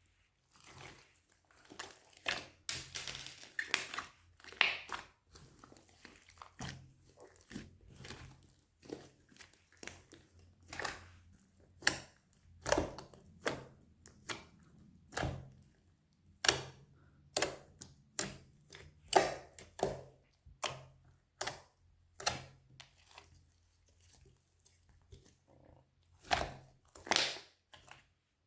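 Slime being worked by hand: a string of short, irregular squishes and clicks, roughly one a second.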